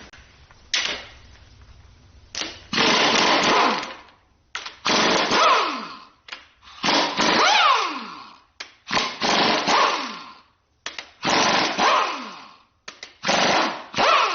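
Air impact wrench hammering in six bursts of about a second each, each ending in a falling whine as it spins down, breaking loose the main bearing cap bolts on a Ford 351 Windsor V8 block.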